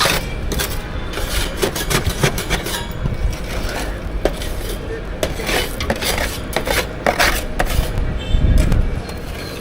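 Utensils and dishes clattering and scraping in a quick, irregular run of knocks and scrapes, with a low rumble swelling near the end.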